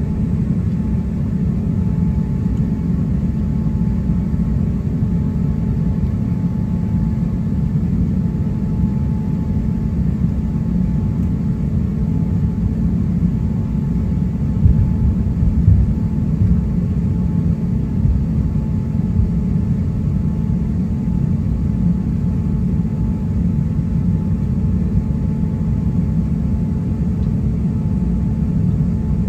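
Cabin noise of an Airbus A350-900 taxiing: the steady low rumble of its Rolls-Royce Trent XWB engines at taxi power, with a faint steady whine. There are two brief louder thumps about halfway through.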